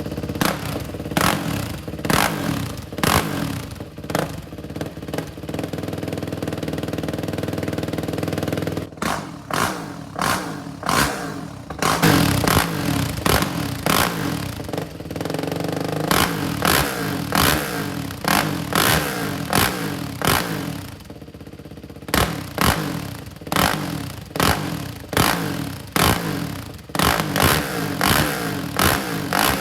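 Husqvarna SMR 511 supermoto's single-cylinder engine being revved through a Higashi exhaust with the dB killer removed: repeated short throttle blips and a few longer held revs. It drops briefly to idle about 21 seconds in, then goes back to quick blips.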